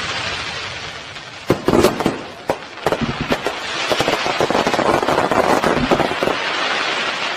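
Fireworks and firecrackers going off: a hiss, then a handful of sharp bangs in the first few seconds, then dense crackling.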